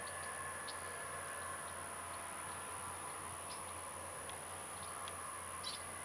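John Deere 8345R tractor running steadily in the distance, heard faintly as a low hum with a light whine, working under load pulling a field cultivator. Short high chirps are scattered throughout.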